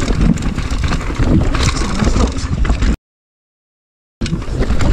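Wind rushing over the microphone with the rumble and clattering of a mountain bike rolling fast down a rough dirt trail. About three seconds in, the sound cuts out completely for just over a second, then carries on as before.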